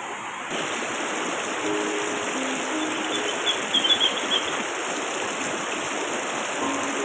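River water rushing over rocks, a steady hiss, with soft background music of sparse single notes. A short burst of high chirps sounds about halfway through.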